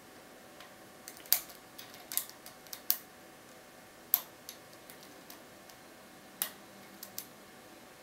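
Lock pick working the pins of a brass Abus E5/C83 euro cylinder against a tension wrench: irregular sharp metallic clicks, about a dozen, a few of them much louder than the rest.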